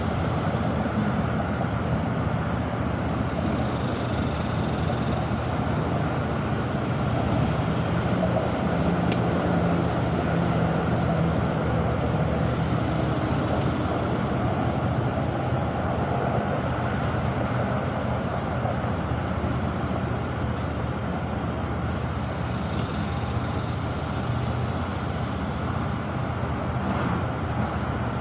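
Steady rumble of road traffic, swelling now and then as vehicles pass, with one brief tick about nine seconds in.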